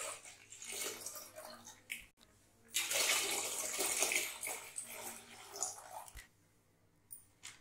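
Milk poured in a stream into a large stainless steel pot, splashing and gurgling as it fills. There is a brief break about two seconds in, then a louder spell of pouring that stops about six seconds in.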